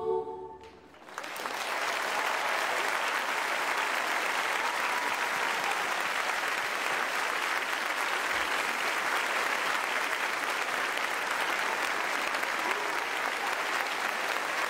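The last sung note of a woman's voice fades out at the very start, then about a second in a studio audience breaks into steady applause that carries on throughout.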